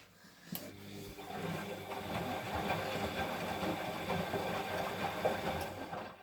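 Siemens washing machine running at the end of its final rinse: a steady motor hum that builds up over the first second or two and then holds even. It cuts off abruptly at the end.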